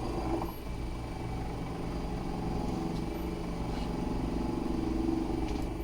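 Electric pump of a Commodore dry bilge system running steadily with an even hum, pumping water from one bilge zone through a four-zone splitter. It grows slightly louder toward the end.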